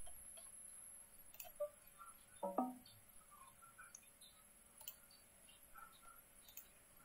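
Faint sound effects from online poker software: scattered soft ticks and short chirps, with one brief, louder double tone about two and a half seconds in.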